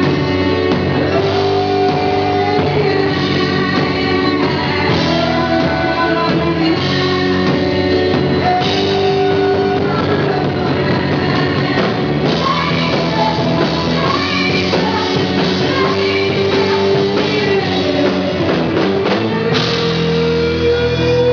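Live rock band: a woman singing long held and sliding notes over stage piano, bass guitar and electric guitar, with a long rising note near the end.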